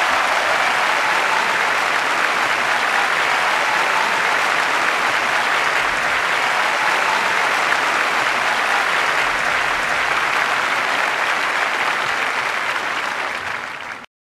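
Sustained applause from a crowd, steady throughout, then fading away and cutting off near the end.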